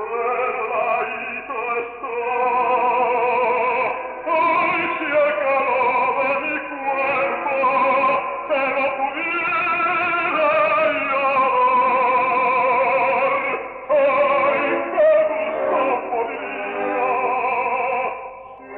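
Operatic singing with orchestral accompaniment: a voice holding long notes with a wide vibrato, the level dipping briefly near the end.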